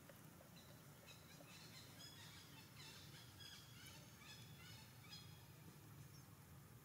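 A run of faint, short, high-pitched animal calls in quick succession, starting about a second in and stopping a little after five seconds, over a low steady hum.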